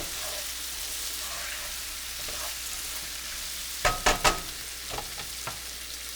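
Chicken thighs frying in butter and olive oil with garlic, sizzling steadily. About four seconds in, a utensil knocks three times against the pan, one knock ringing briefly, followed by a couple of lighter taps.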